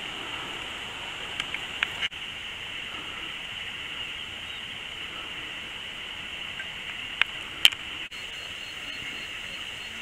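A steady high-pitched hiss, with a few sharp clicks about one and a half to two seconds in and again about seven to eight seconds in.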